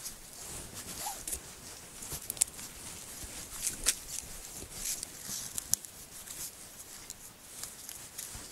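Small clicks and scraping of hands working a frozen trail camera's plastic case and mounting strap loose on a tree, with a few sharper clicks.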